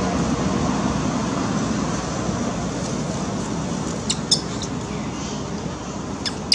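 Steady outdoor background rumble, easing slightly, with a few short high chirps about four seconds in and again near the end.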